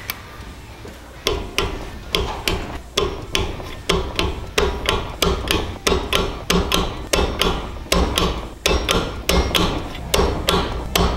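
Hammer blows in a steady rhythm, about two or three a second, each with a short ring, starting about a second in and stopping near the end.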